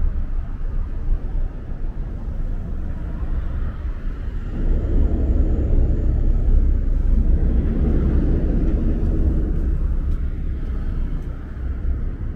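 A motor vehicle passing: a low rumble that swells about four and a half seconds in and eases off near the end.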